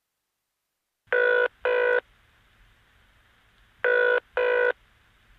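Telephone ringing heard down a phone line, two double rings about three seconds apart: the ringing of an outgoing call before it is answered.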